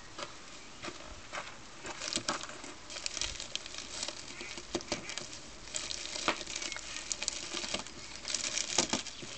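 Irregular rustling and crackling with scattered sharp clicks, getting busier about two seconds in.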